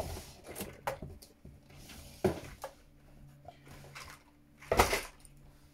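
Knocks and clicks of makeup containers being handled while someone rummages for a product, a few separate knocks with the loudest about five seconds in.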